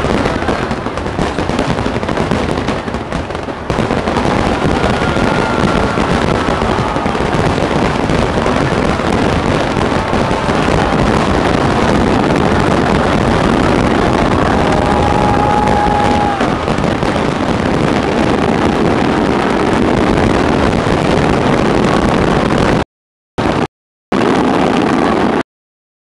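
A dense, continuous barrage of fireworks exploding in a display finale: rapid overlapping bangs and crackling with no gaps between them, and a couple of brief faint whistles. Near the end the sound cuts out completely twice.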